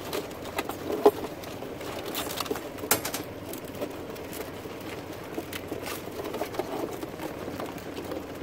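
Light clicks and knocks as a Dungeness crab and a plastic crab gauge are handled, with one sharper knock about a second in, over a steady low background hiss.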